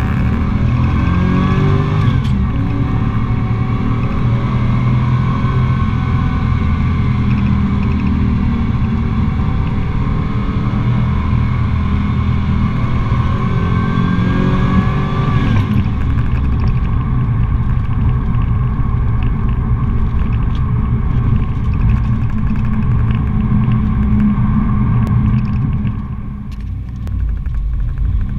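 Car engine heard from inside the cabin, revving hard under acceleration, its pitch climbing up to about two seconds in and then climbing again in one long steady pull. About sixteen seconds in the revs drop and it runs lower, easing off near the end.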